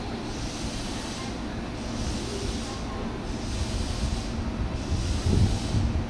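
Steady rumble of railway noise on a train station platform, growing louder with low thumps near the end.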